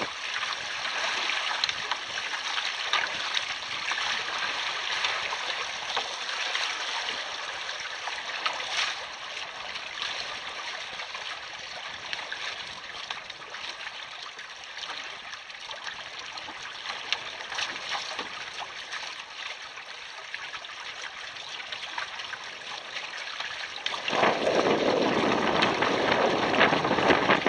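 Water rushing and splashing along the hulls of a sailing double canoe under way, a steady hiss with small crackles. About 24 seconds in, a louder, deeper noise of wind on the microphone comes in.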